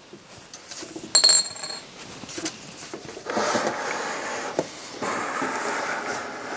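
A single small metal clink with a short bright ring about a second in, like a loose screw set down on a hard surface. Then steady scraping and rubbing as a screwdriver and hands move over the CD player's sheet-metal case.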